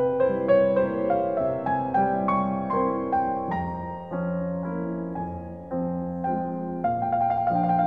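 Classical solo piano music: a melody of struck notes over lower chords, softer in the middle and fuller near the end.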